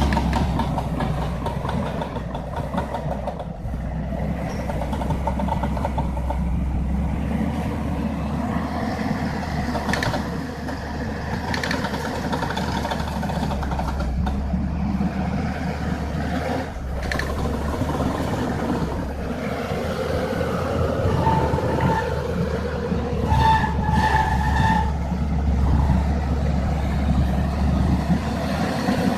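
A heavy vehicle's engine running steadily, a low rumble with some rattling noise, and brief higher tones sounding a few times about three-quarters of the way through.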